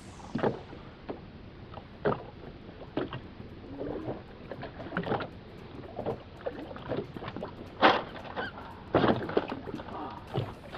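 Small waves lapping and slapping irregularly against a boat's hull, over a steady hiss of wind and water.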